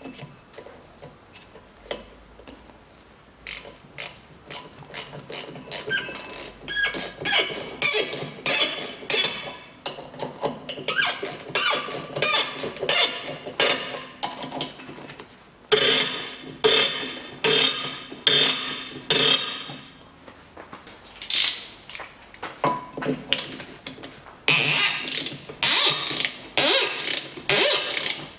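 Ratchet wrench clicking in rapid runs with short pauses, turning bolts screwed into a VAZ 2110 rear brake drum to press the drum off the hub. The clicks are sparse at first and come thick from about six seconds in.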